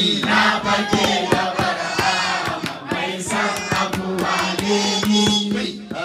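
Hausa Islamic praise song: voices singing over sharp, regular drum strokes, with a steady low note held underneath.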